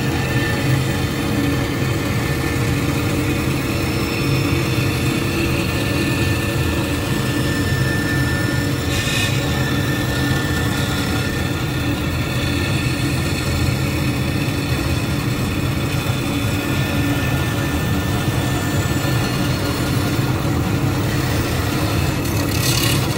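Jet bandsaw running steadily with a low motor hum, its guides and guide bearings freshly cleaned. A brief higher hiss comes about nine seconds in and again near the end.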